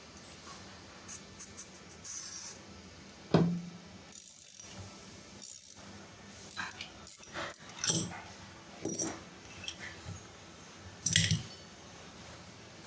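Irregular metallic clinks and knocks of tools and parts being handled and set down during motor bearing work, with one louder knock about three seconds in.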